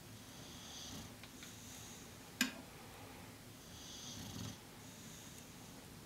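English bulldog snoring while dozing sitting up, a run of slow snoring breaths, the loudest about four seconds in. A single sharp click about two and a half seconds in.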